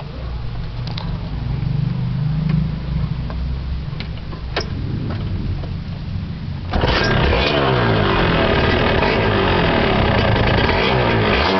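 Kawasaki Victor-S 150 motorcycle engine: a low rumble, then about two-thirds of the way in it suddenly gets much louder and revs up and down.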